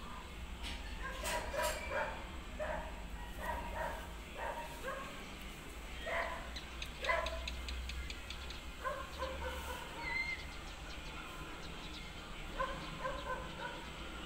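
Small dogs yipping and barking off and on, short high yelps every second or so, with a few seconds' gap around the middle.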